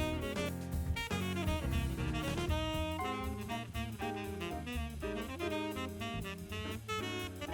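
Background jazz music with saxophone, piano and drums.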